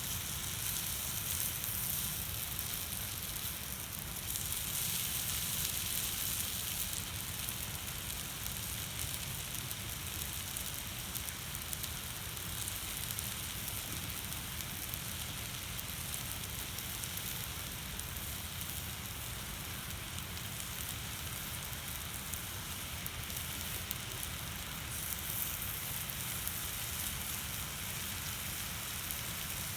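Steady sizzling hiss with faint crackles, typical of food frying on a hot steel plate over a campfire.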